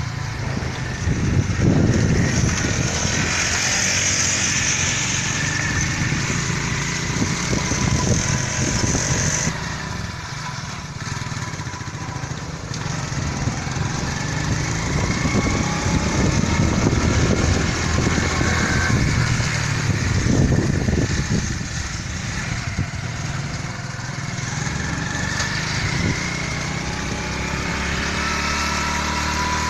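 A motor vehicle's engine running steadily, with a hiss of wind or road noise over it.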